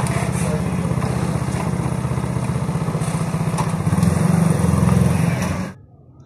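Small commuter motorcycle's single-cylinder engine idling with a rapid, even beat, running louder for about a second some four seconds in. The sound cuts off abruptly near the end.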